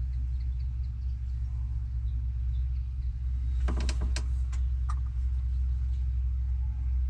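Massey Ferguson 275's four-cylinder diesel engine idling steadily, heard from inside the cab, with a few light clicks and knocks about four to five seconds in.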